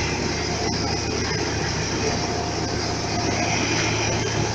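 Asphalt paver's diesel engine running steadily as the machine lays asphalt, a constant low hum.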